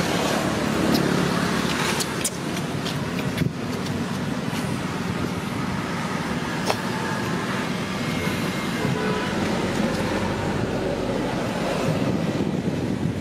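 Steady outdoor background noise, a low rumble with hiss, broken by a few faint clicks.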